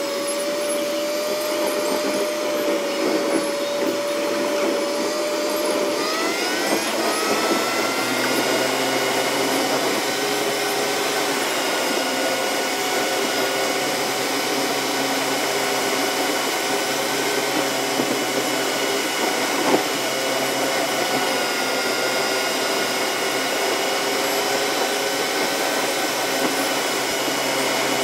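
Car interior noise at highway speed: a steady rush of road and wind noise with a whine from the car's engine and drivetrain. The whine rises in pitch about six seconds in, then holds steady at the higher pitch.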